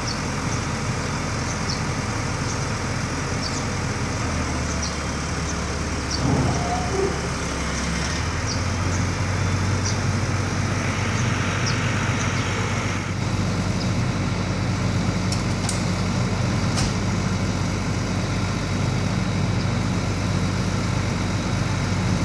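Truck engine running steadily while the loading ramps are lowered, its note stepping up a few times. Faint small ticks sound now and then over it.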